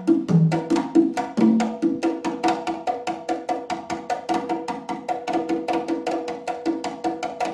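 A set of three LP congas played by hand in a fast solo: a dense, unbroken run of slaps and open tones, many strokes a second. A few deeper open tones sound about half a second in.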